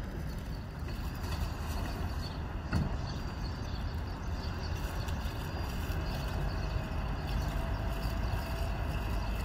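Small harbour cleaning boat's engine running with a low, steady rumble as the boat moves slowly across the water, with a single sharp knock about three seconds in.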